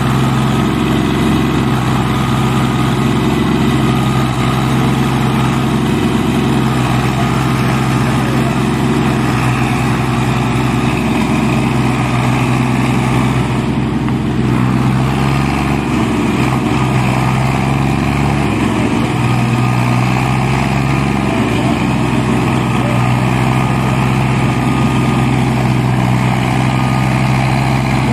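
Ford tractor's diesel engine running steadily and loudly as it tries to pull a loaded sugarcane trolley out.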